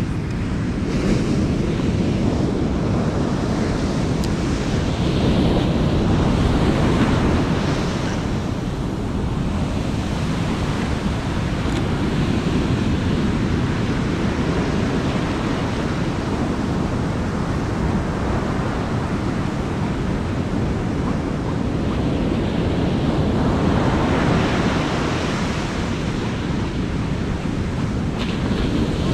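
Ocean surf breaking and washing up a sandy beach, with wind rumbling on the microphone. The wash swells twice, about five seconds in and again near the end.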